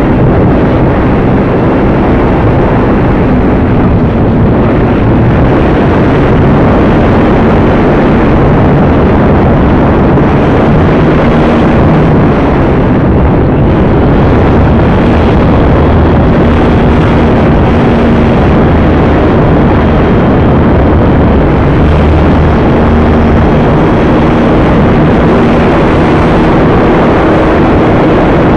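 Onboard-camera sound of an Acromaster RC plane in flight: loud, steady wind rush over the microphone mixed with the drone of its electric motor and propeller, with faint motor tones that shift slightly in pitch.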